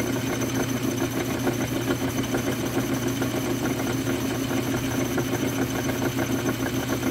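Metal lathe running at a steady pitch, its motor and gearing humming while the cutter takes a light truing pass on a spinning water-jet-cut metal disc, bringing the not-quite-round part true.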